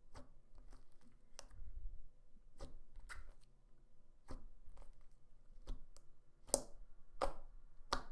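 Thick, glossy slime being squeezed and poked by hand, giving a string of irregular crisp clicks and pops, the loudest near the end.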